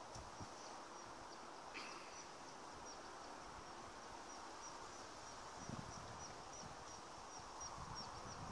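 Faint outdoor ambience: a steady low hiss with a high, short chirp repeated evenly about twice a second, a brief higher call about two seconds in, and a few low thumps near the middle.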